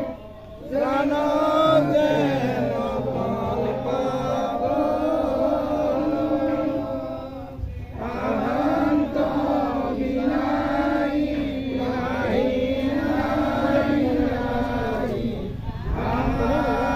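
A group of voices chanting a devotional prayer together in unison, in long held lines broken by short breath pauses about every eight seconds.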